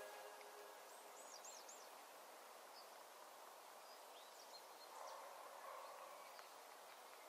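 Faint outdoor ambience: a low, steady hiss with a few quick, high bird chirps, a small cluster about a second in and a few more around the middle.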